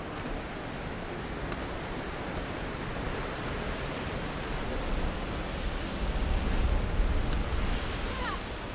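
Steady rush of wind and distant surf on an open sea cliff, with wind buffeting the microphone harder about six seconds in.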